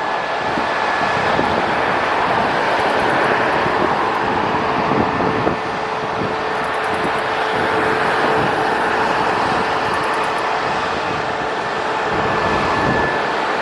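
Airbus A321neo jet engines running steadily: a broad rushing noise with a held high whine and a lower hum, over an uneven low rumble.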